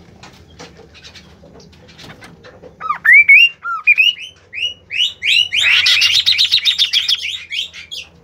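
A songbird singing: a few loud whistled notes that sweep upward, about three seconds in, build into a fast run of notes that stops just before the end. Faint short ticks come before the song.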